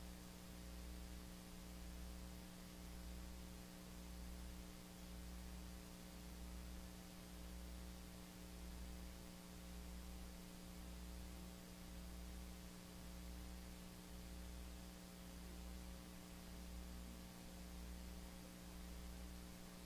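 Faint steady hum and hiss, with a low throb that pulses about once a second.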